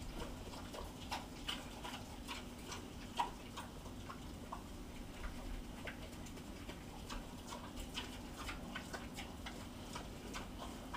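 A pet pig eating from a metal bowl: irregular wet chewing and smacking clicks, several a second, with one sharper click about three seconds in, over a faint steady hum.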